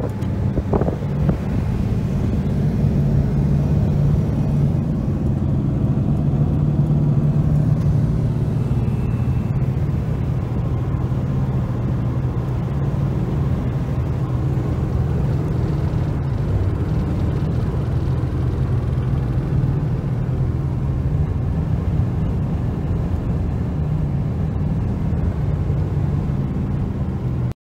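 Cabin noise of a Ford car driving at motorway speed: a steady, even drone of engine and road noise.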